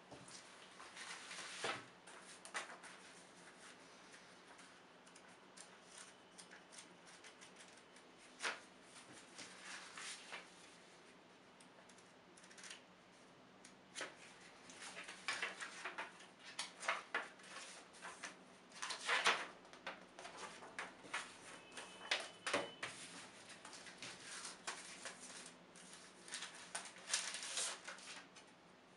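Paper leaflets and booklets being handled: irregular rustling and light taps as sheets are shuffled, pages flipped and cards set down on a tabletop. Near the end a CD is slid out of its paper sleeve.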